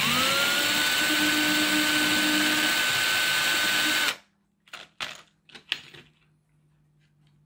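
Cordless drill spinning up and running for about four seconds with a brass 3D-printer nozzle in its chuck held against a flat file, a rasping, grinding noise under a steady motor whine, filing down the nozzle's thread for a tighter fit; it stops suddenly. A few light clicks and taps follow.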